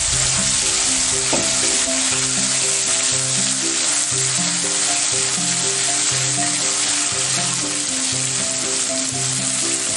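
Spice-coated boiled taro (colocasia) pieces sizzling steadily in hot oil as they go into the pan and are stirred with a wooden spatula, with background music playing underneath.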